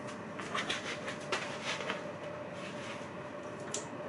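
Faint light clicks and knocks of kitchen things being handled and set aside, several in the first two seconds and one sharp tick near the end, over a steady faint hum.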